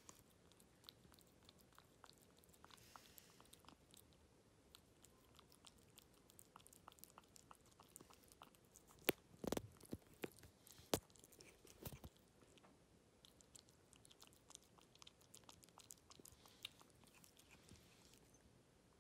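Ragdoll kitten eating very soft mousse-pâté wet cat food from a ceramic bowl: quiet, rapid licking and chewing smacks, with a few louder sharp clicks about halfway through.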